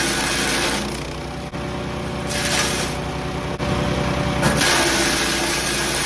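MechMaxx 6-inch wood chipper's engine running steadily, with loud stretches of chipping noise as branches are fed through: one through the first second, a short one about two and a half seconds in, and a longer one from about four and a half seconds in.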